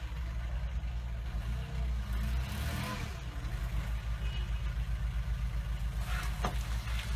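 Small site dumper's engine running with a steady low throb, with a few brief knocks about six seconds in.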